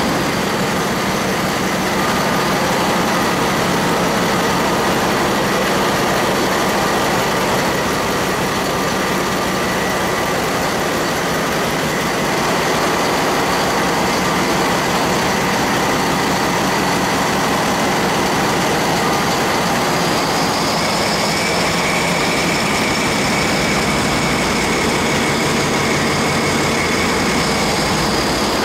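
Ferry engine room with a GE 7FDM12 diesel main engine running: a loud steady mechanical din with a held high whine. About twenty seconds in, the whine shifts slightly higher.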